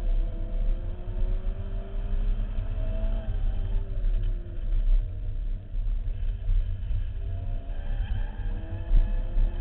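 The supercharged four-cylinder engine of a 2005 MINI Cooper S (R53), revving up and down as the car is driven hard through an autocross course. A heavy wind rumble on the outside-mounted microphone runs under it.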